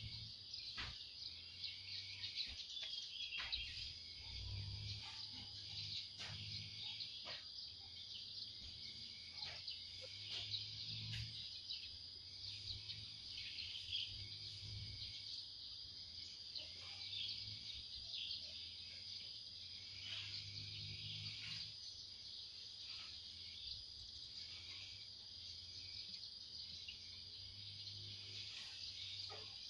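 Steady high-pitched chorus of crickets and other insects trilling without a break, with a few brief clicks and a faint low rumble underneath.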